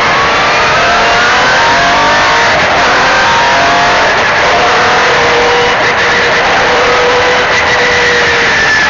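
MG Metro 6R4 rally car's 3.0-litre V6 engine running hard under acceleration, its pitch climbing in steps through several gear changes, then levelling off and falling away near the end, over steady road noise.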